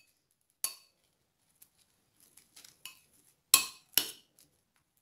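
Metal spoon clinking against the side of a glass bowl while stirring wet toilet paper and dish detergent: a sharp clink about half a second in, a few light taps, then two louder clinks close together near the end.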